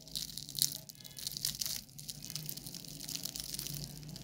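The crisp, flaky fried crust of an aloo khasta kachori crackling and crumbling as it is broken open by hand: a dense run of sharp crackles, loudest about half a second in.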